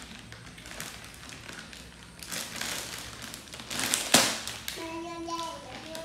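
Plastic snack bag crinkling as a baby monkey clutches and handles it, with one sharp tap about four seconds in.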